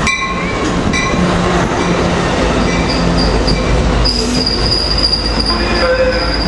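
Train rolling through the station: a low steady rumble with steel wheels squealing on the rail, a few short squeals followed by a thin, high squeal that sets in about four seconds in and holds.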